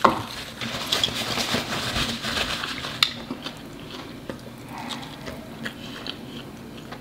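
Close-miked chewing and mouth sounds of someone eating rotisserie chicken: a dense run of small clicks for the first few seconds, then quieter chewing.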